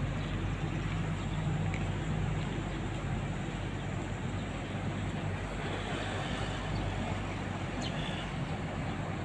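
Urban street ambience: a steady wash of traffic noise with a low engine hum, strongest in the first few seconds.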